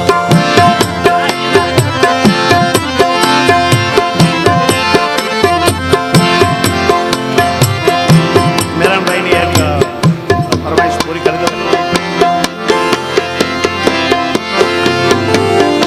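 Instrumental Indian music: tabla playing a fast, steady rhythm under a melody instrument holding sustained notes.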